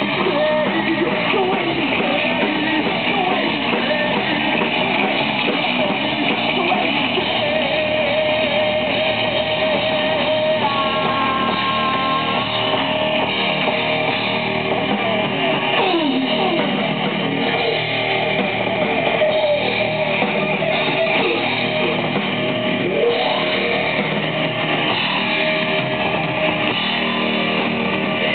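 Metal band playing live: distorted electric guitars, bass and drums, with a singer's vocals, recorded from among the audience and sounding dull and muffled.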